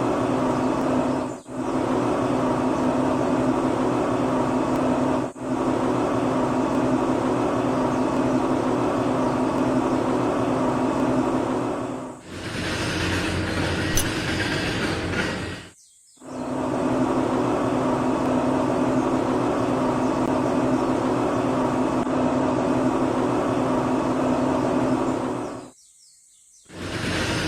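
Small electric motor running with a steady hum, its note shifting for a few seconds midway and stopping briefly twice.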